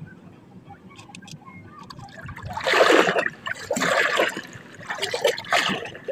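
Water splashing and slapping against the hull of a small outrigger boat, in three or four loud surges over the second half.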